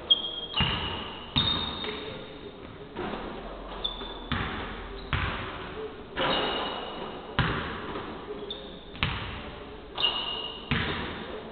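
Basketball bouncing on a hardwood gym floor, about a dozen irregular thuds roughly a second apart, echoing in a large hall, with short high squeaks from sneakers on the floor.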